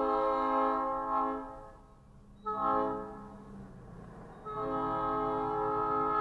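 Batten Kill Railroad diesel locomotive's air horn sounding three loud blasts: long, short, then long, the last still held at the end. A low rumble runs underneath.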